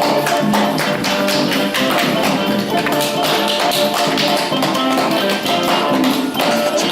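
Background music: a lively Latin-flavoured piece with a fast, even percussive beat over plucked and sustained instrument notes.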